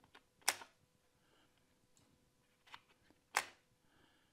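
Electric HO-scale turnout being thrown by its switch machine: two sharp clicks about three seconds apart, with a fainter click just before the second, a firm, positive snap of the points.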